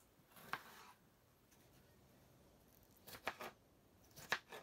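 Knife cutting a cucumber on a cutting board: a single faint cut about half a second in, then two short runs of quick cuts, around three seconds in and again near the end.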